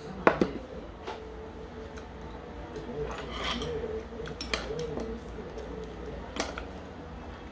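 Stainless steel bowl and metal chopsticks clinking and scraping during a meal. A sharp clink just after the start comes as a steel bowl is set down, with further clinks near the middle and near the end, over a faint steady hum.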